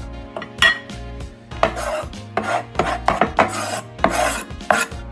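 Chopped rosemary being scraped off a wooden cutting board into a glass bowl of lime juice: a run of short rasping scrapes, coming thickest in the middle of the stretch.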